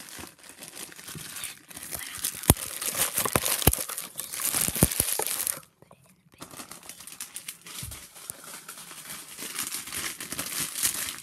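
Crinkly plastic wrapper being handled and torn open by hand: dense crackling with sharp snaps, loudest in the first half. It breaks off briefly about six seconds in, then goes on as lighter crinkling.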